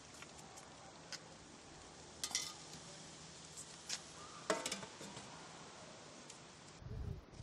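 A few light metal clinks of a ladle and aluminium lid against a large aluminium cooking pot, over a faint steady hiss. The clink about four and a half seconds in rings briefly, and a soft knock near the end comes as the lid is pressed down to cover the stew.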